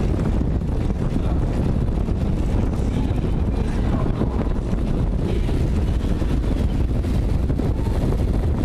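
Steady rush of wind over the microphone of a camera mounted on a track bike at racing speed, mixed with the low rumble of tyres rolling on the wooden velodrome boards.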